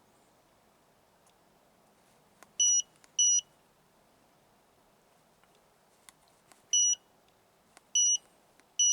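Handheld Autel AL539 scan tool beeping as its keys are pressed: five short, high, identical beeps, each just after a faint key click. Two come close together about two and a half seconds in, and three more follow about a second apart near the end.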